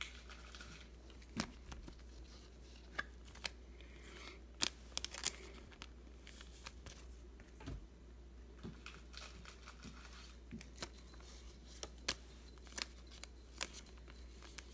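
Faint taps, clicks and rustles of trading cards and clear plastic card sleeves being handled by gloved hands and set down on a table, over a steady low hum.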